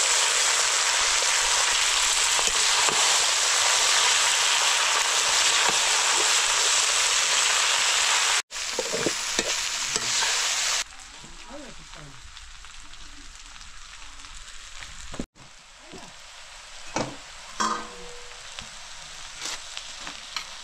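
Noodles and dried buffalo meat frying in hot oil: a loud, steady sizzle for the first several seconds. After a cut it drops to a much quieter sizzle, with occasional short clinks and scrapes of a utensil stirring.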